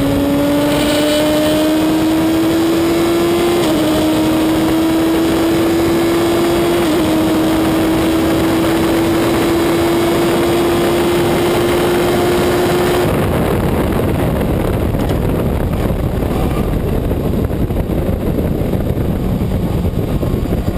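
Reynard Inverter race car's engine heard from the open cockpit under full throttle, its note climbing steadily with two brief dips in pitch at gear changes about 4 and 7 seconds in. About 13 seconds in the engine note drops away as the driver lifts off, leaving wind and rumble.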